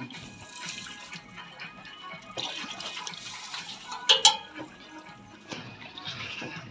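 Water splashing and trickling as mud is washed off a backhoe loader's steel arm linkage in shallow river water, with a brief sharp high sound about four seconds in.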